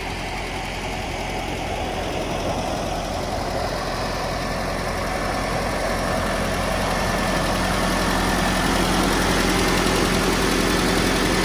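1985 Nissan 720 pickup's gasoline four-cylinder engine idling steadily, growing a little louder toward the end.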